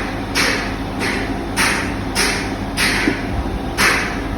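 Microwave oven running with a foil tray of food inside: a steady low hum under a hiss that swells and fades in a regular pulse, a little under twice a second.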